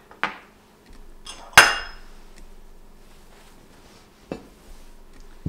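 A ceramic serving dish being handled on a countertop: a small click, then one sharp clink that rings briefly about one and a half seconds in, and a faint knock near the end.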